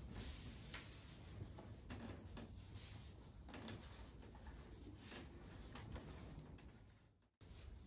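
Near silence, with faint scattered rustling and light knocks from priests shifting to new seats in a temple hall; the sound briefly cuts out near the end.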